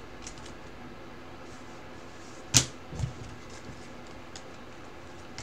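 Quiet handling of a stack of trading cards, with one sharp click about two and a half seconds in and a softer knock just after.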